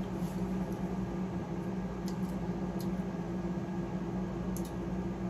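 Steady low hum and hiss of room background noise, with a few faint clicks partway through.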